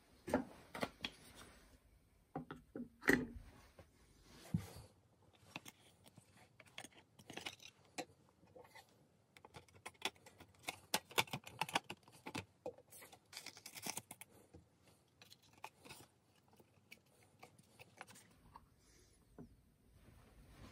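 Handling sounds of a thin cut brass plate and black card backing being fitted into a small wooden picture frame: irregular light clicks, taps and scrapes, with a few louder knocks in the first few seconds.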